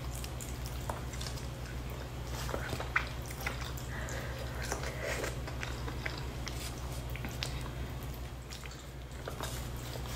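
Close-miked chewing and mouth sounds of a person eating chicken by hand, with many small irregular wet clicks and smacks, over a steady low hum.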